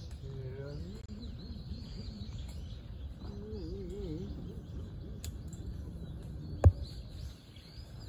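Outdoor pond-side ambience: a steady low rumble with faint, scattered high bird chirps, and one sharp knock about two-thirds of the way through.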